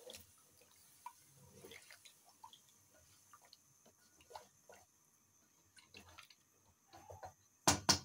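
Wooden spatula stirring a thin meat-and-potato curry gravy in a metal pressure cooker: faint, scattered sloshes and light taps and scrapes against the pot.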